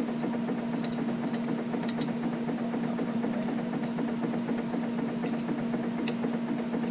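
A steady low machine hum with one constant tone, with a few faint, sharp metallic clicks scattered through it as an Allen key and hands work the screws of an AR-15 handguard rail.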